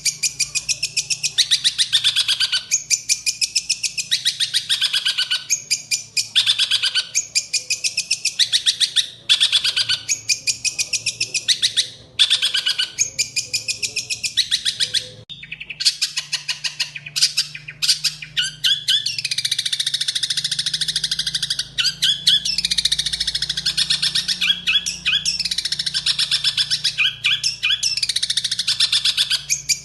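Songbird singing fast, dense, high-pitched chattering phrases of rapidly repeated notes, broken by short pauses, with a brief gap about halfway. A faint low hum lies underneath.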